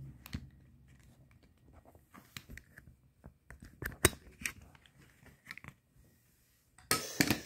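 Scattered clicks and handling noises from a Springfield Armory XDE CO2 BB pistol being worked in the hand, the sharpest click about four seconds in, then a short burst of rustling near the end.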